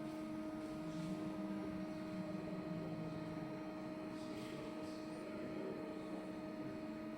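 Baileigh BS-24A automatic bandsaw running with a steady machine hum that holds a few fixed pitches.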